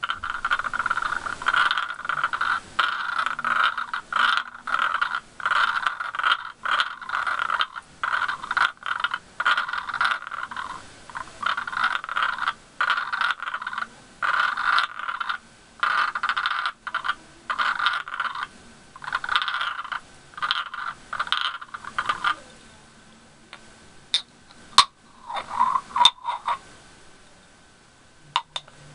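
Two wax-filled glass candle jars rubbed against each other in short back-and-forth strokes, a continuous glass-on-glass scraping. About three-quarters of the way through the rubbing stops, and a few light, sharp glass clinks follow.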